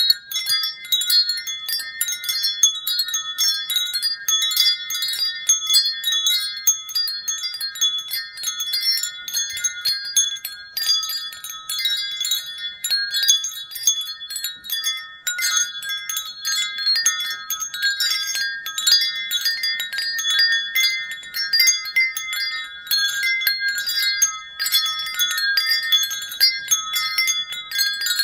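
Wind chimes ringing continuously, many high-pitched metal tones struck in quick, irregular succession and overlapping as they ring on.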